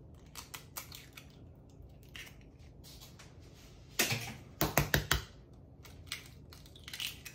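Eggs being cracked into a stainless steel mixing bowl: sharp taps and shell cracking, with a loud cluster of knocks about four to five seconds in and a smaller one near the end.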